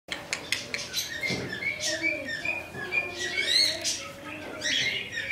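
Pet parrots chattering: a few sharp clicks at the start, then a quick run of short high chirps and a rising squeak past the middle.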